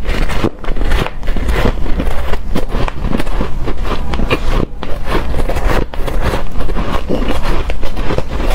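Close-miked crunching of hard, frosty shaved ice being bitten and chewed: dense, rapid crackling crunches with a few brief pauses.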